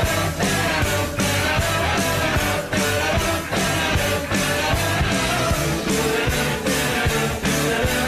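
Ice-hockey goal song: rock music with electric guitar, singing and a steady driving beat.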